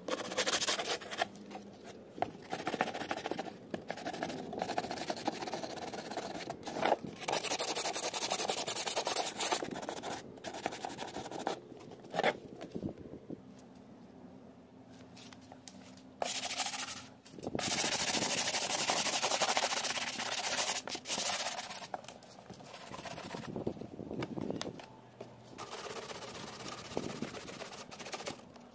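Hand sanding of a fiberglass fairing with rolled sandpaper: rasping strokes that come in stretches, with short pauses between them.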